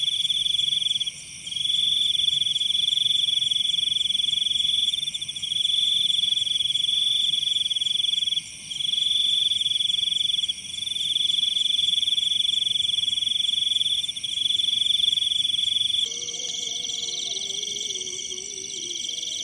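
Loud, steady high-pitched trilling of insects such as crickets, a continuous buzz that drops out briefly three times. About sixteen seconds in, the trill changes and a lower, wavering sound joins it.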